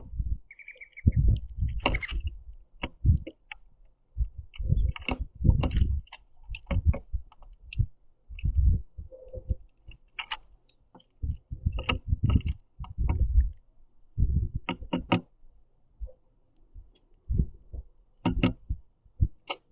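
Birds, mourning doves and northern cardinals, pecking sunflower seeds on a wooden platform feeder close to the microphone: irregular clicks and low knocks, with a short high chirp near the start.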